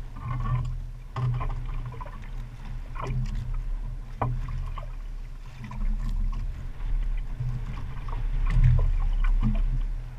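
Wind buffeting and water slapping around a small outrigger fishing boat at sea: a low rumble that swells and drops unevenly, with occasional light clicks and knocks.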